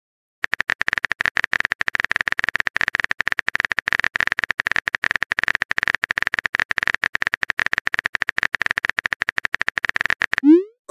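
Rapid clicking of a texting app's phone-keyboard typing sound effect, a dense steady run of short clicks while a reply is typed, ending with a quick rising swoop near the end.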